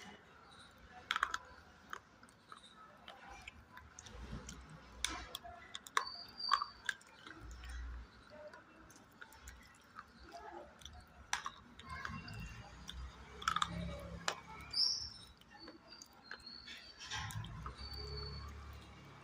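A person biting and chewing slate: irregular sharp crunches and clicks, with softer chewing thuds between them.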